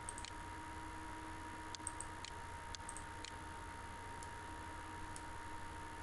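Faint, scattered clicks of a computer mouse, about ten over the few seconds, over a faint steady electrical hum and room hiss.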